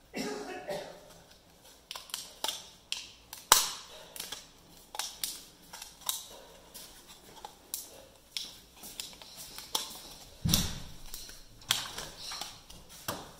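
Hard plastic switch plate clicking and knocking against the wall and switch box as the wiring is pushed in behind it: a string of irregular sharp clicks and taps, with a duller thump about ten and a half seconds in.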